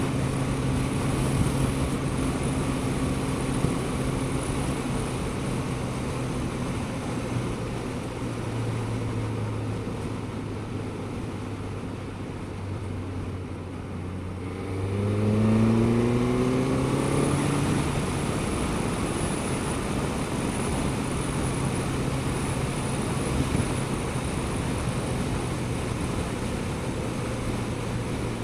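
Suzuki GSX-S1000GT's inline-four engine running under way, with wind and road noise. The engine note eases off and drops in the middle, then rises quickly and gets louder as the throttle opens about fifteen seconds in, before settling to a steady cruise.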